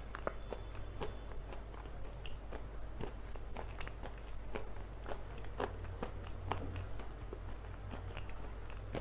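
Close-up mouth sounds of someone biting and chewing something hard and crunchy, with sharp irregular crunches a few times a second over a low steady hum.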